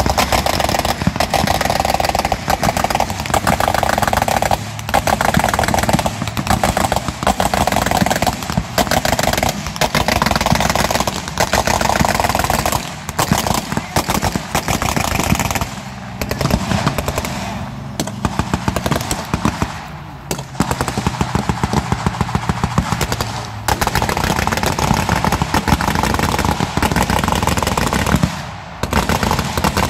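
Rapid gunfire from blank-firing rifles and machine guns, crackling almost without a break, with a few brief pauses. A vehicle engine runs underneath.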